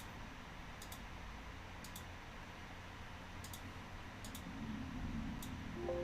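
Computer mouse clicking: light, sharp clicks, mostly in quick pairs, about once a second or so, over a low steady room hum. A few musical notes come in at the very end.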